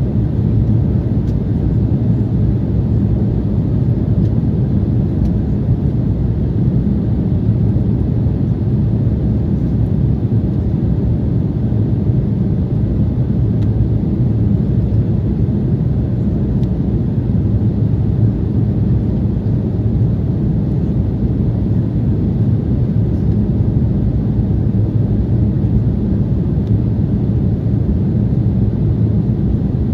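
Steady cabin noise of an Embraer 190 airliner in flight, heard from a window seat by the wing: a low, even rumble of its GE CF34 turbofan engines and airflow, with no change in pitch or level.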